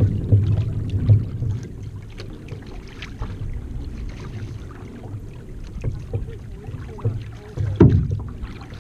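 Water sloshing and splashing along an outrigger canoe's hull as it is paddled, with uneven paddle strokes and a louder splash near the end.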